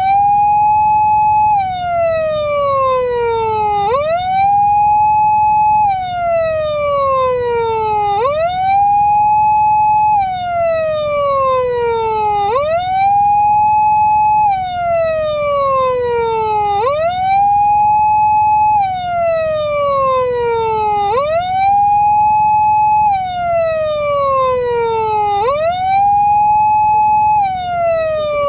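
PATLITE SAP500 siren amplifier sounding the Japanese police-car wail through its speaker on its 4-second cycle. Each cycle jumps up quickly, holds a high tone for about a second and a half, then slides slowly down, repeating about every four seconds.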